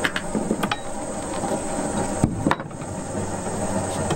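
A few sharp clicks and knocks from a loose flat drive belt being handled on its iron pulleys and line-shaft parts. The two loudest come close together a little past halfway. A steady high insect buzz runs underneath.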